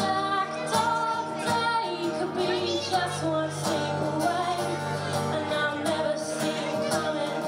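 A live song: a woman singing long held notes over a strummed acoustic guitar.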